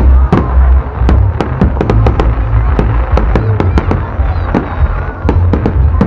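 Fireworks display going off in a rapid volley: many sharp bangs, about three or four a second, over a continuous low rumble of bursting shells.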